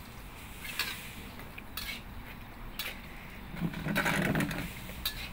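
A metal spatula scraping and knocking against a wok, a stroke about once a second, as rice fries in oil. A louder, rougher noise lasts about a second, around four seconds in.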